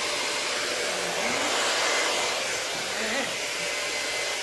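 Revlon handheld hair dryer running steadily, blowing air across wet acrylic paint on a canvas to spread it in a Dutch pour.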